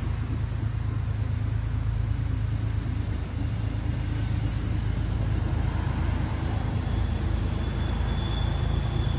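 MBTA Commuter Rail train of bi-level coaches rolling past with a steady low rumble; a thin, high wheel squeal comes in near the end.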